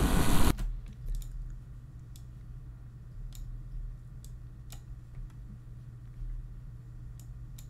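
Computer mouse clicking now and then, several single clicks spread unevenly, over a faint steady low hum. In the first half-second, played-back speech over engine noise cuts off suddenly.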